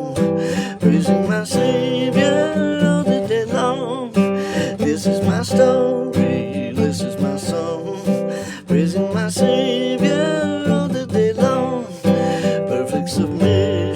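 Background music: an instrumental passage of an acoustic-guitar hymn arrangement, strummed guitar under a wavering melody line, with no sung words.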